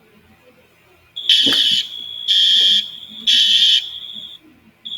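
Fire alarm sounders start about a second in with a steady high tone. Over it they sound the three-pulse temporal evacuation pattern: three half-second blasts a second apart, then a pause before the next group.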